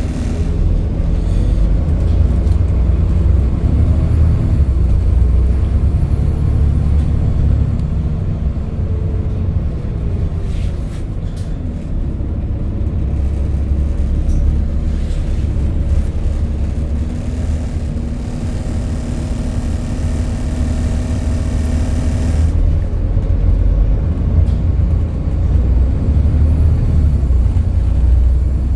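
Volvo B7TL double-decker bus's engine running under way, heard from on board: a steady low rumble with engine tones that rise and fall as it drives.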